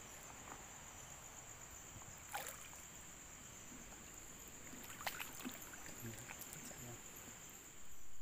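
Wading through shallow water and wet grass, with a few sharp clicks and a louder stretch of noise near the end, over a steady high-pitched insect chorus.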